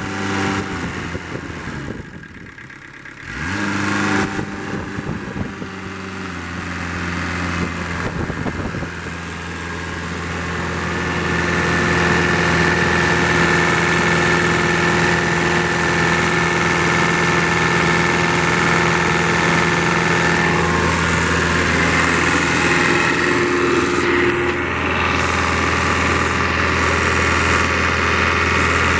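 Kubota V1505 four-cylinder diesel engine running on a test stand. It slows briefly about two seconds in, picks back up, then settles into steady running that grows louder over the second half.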